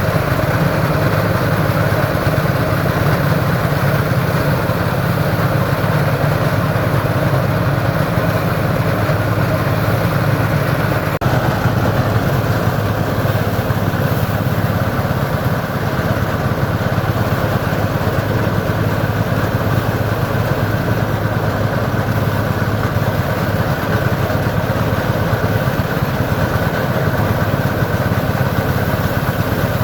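An engine running steadily at an even speed, with a brief break about eleven seconds in.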